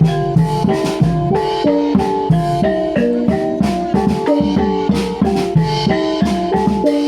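Javanese gamelan ensemble accompanying Reog Bantul, playing a fast, steady rhythm: tuned bronze percussion strikes a quick repeating melody over regular hand-drum strokes.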